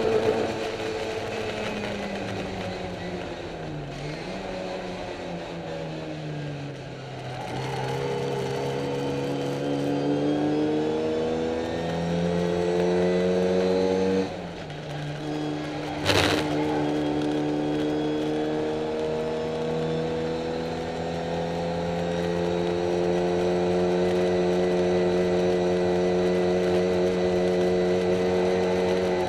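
Racing Mini's engine heard from inside the cockpit. The revs fall as the car slows, then climb under acceleration. A short break about halfway through drops the revs to a lower note, like a gear change, and a sharp knock follows a couple of seconds later. The revs then climb slowly and hold high. The uploader says the car is down on power.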